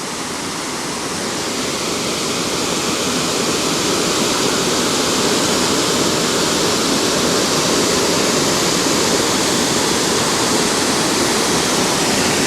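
Waterfall: the steady rush of falling water, growing louder over the first few seconds and then holding even.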